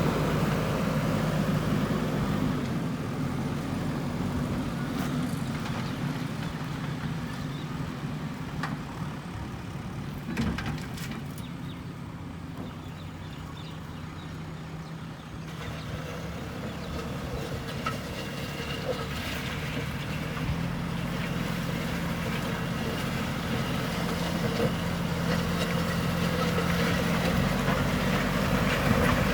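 Diesel engine of a JCB backhoe loader running, easing down in the middle and building up again toward the end. There are a couple of sharp knocks about ten seconds in.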